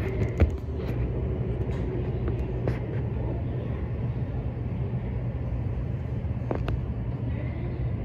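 Steady low hum inside an E257 series express train car, with a few faint clicks.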